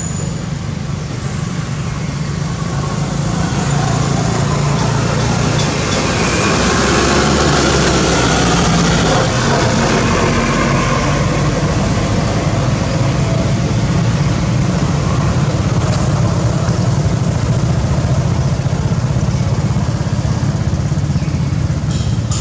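Steady engine noise of a motor vehicle running, getting louder about six seconds in and staying loud.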